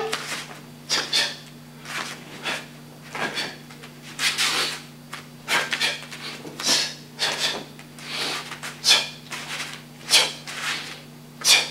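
Quick swishes and snaps of a martial arts uniform and the pad of bare feet on foam mats as a karate form is performed at speed, a short sharp sound about every half second to second, irregularly spaced. A faint steady low hum runs underneath.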